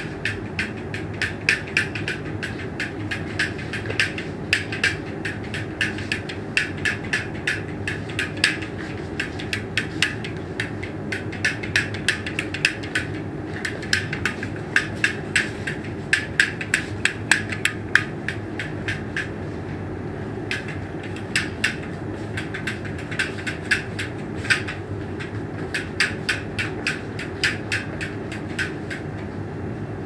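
Rapid, irregular series of sharp clicks or taps, several a second, thinning out briefly about two-thirds of the way through and stopping just before the end, over a steady low hum.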